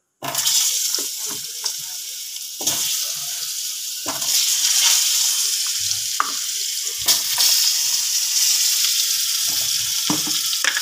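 Small halved potatoes frying in hot oil in a wok: a loud, steady sizzle that starts abruptly just after the beginning, with a few short knocks as the pieces go in and are moved about.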